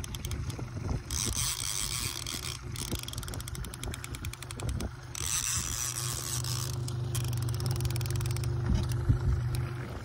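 Fishing reel clicking in several quick runs of rapid ratchet-like clicks while a big lake trout is played on the line, over the steady low hum of an outboard motor.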